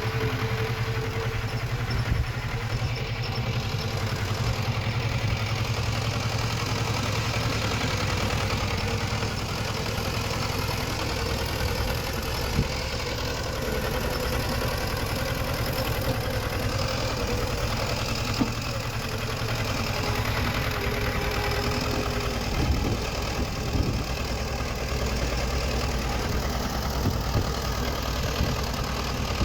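Diesel engine of earthmoving machinery running steadily at a low, even speed, with a few sharp knocks or clanks about halfway through and again later.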